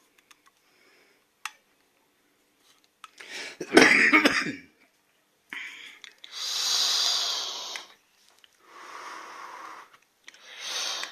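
A person coughs hard about four seconds in, then lets out long hissing breaths, three in a row.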